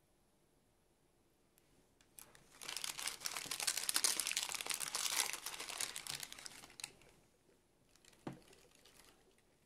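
A small crinkly wrapper packet being unwrapped by hand: dense crinkling that starts about two seconds in and lasts about four and a half seconds, followed by a single soft knock near the end.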